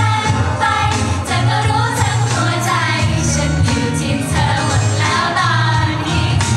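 Thai girl idol group singing a pop song together into handheld microphones over a backing track, several female voices in unison over a steady bass line.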